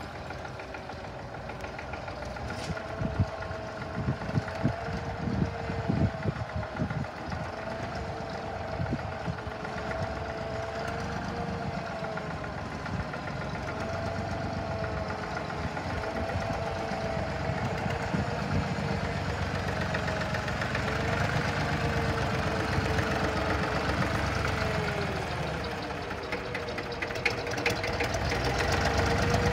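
Fordson Dexta tractor engine running as the tractor is driven around, its speed wavering up and down. It is newly revived, its first run in thirty years. There are a few sharp knocks in the first several seconds, and it grows louder near the end as the tractor comes back close.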